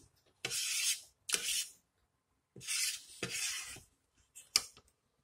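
Metal fork scraping sauce off a plate in four short strokes, followed by a sharp click of the fork near the end.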